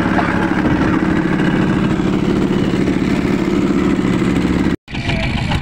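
Fishing boat's single-cylinder inboard diesel engine running steadily at trolling speed. It breaks off for a moment near the end.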